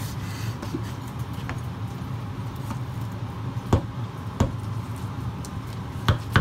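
Serrated knife cutting cooked meat on a plastic cutting board: a handful of sharp knocks as the blade hits the board, over a steady low hum.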